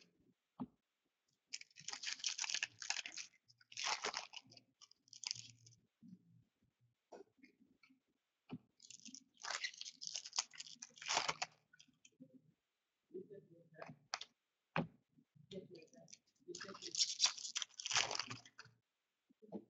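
Hockey card pack wrappers being torn open and crinkled. There are three bursts of crackling, each a second or two long: near the start, in the middle and near the end, with light clicks and taps between them.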